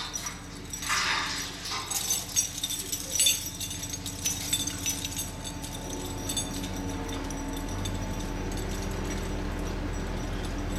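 Scattered light metallic clinks and rattles of crane rigging chains and hardware. From about halfway through, a steady low engine hum builds and grows louder.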